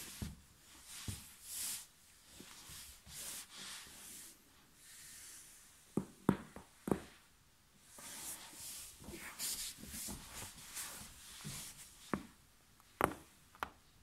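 Knit sweater rustling and rubbing against a tile floor as a person lying on it twists and stretches. Sharp pops of the back cracking come three in quick succession about six seconds in and twice more near the end.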